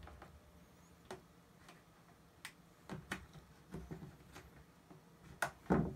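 Scattered light clicks and taps, irregular and a dozen or so, with the loudest pair near the end: a knife cutting through the molded plastic clips of a car door speaker and the plastic parts being handled.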